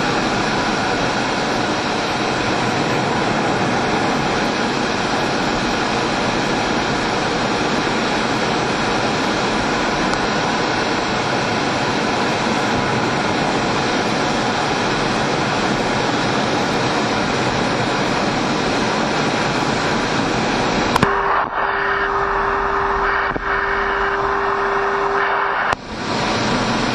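Steady rushing noise of the MiG-29UB's jet engines and airflow, heard from inside the cockpit in flight. About 21 seconds in, the sound changes abruptly to a thinner mix with a steady single tone that holds for about four seconds, broken once briefly.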